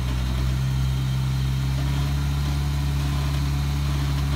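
Jeep Wrangler Rubicon's engine running steadily at low revs while the Jeep crawls up a granite rock ledge.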